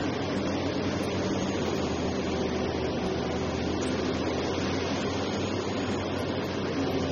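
Liebherr R 984C hydraulic crawler excavator's diesel engine running steadily under load while the bucket digs.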